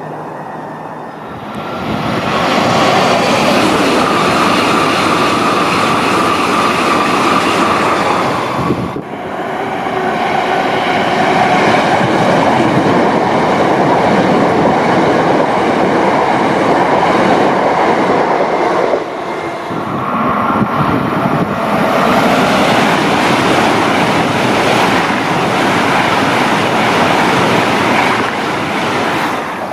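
Electric passenger trains running past one after another, each a loud steady rush of wheel-on-rail noise with some clickety-clack: first a c2c Class 357 electric multiple unit, then another c2c unit, then a Eurostar high-speed train. The sound cuts sharply from one train to the next twice.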